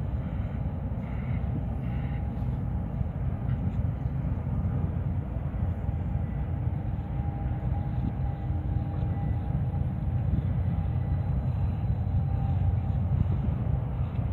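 Steady low rumble from the container terminal and its berthed ship across the water, with a faint machinery hum running through it.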